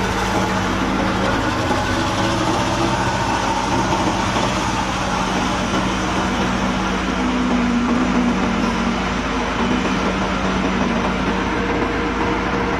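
Heavy diesel engines of earthmoving machines running steadily at close range. The engine note swells briefly about seven to nine seconds in.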